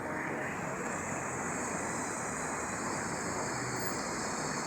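Steady rushing of water pouring down an artificial waterfall on a building's facade.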